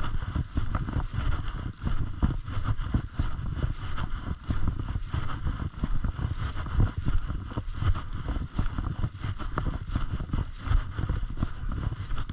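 Wind buffeting a camera microphone: an uneven low rumble that rises and falls all through.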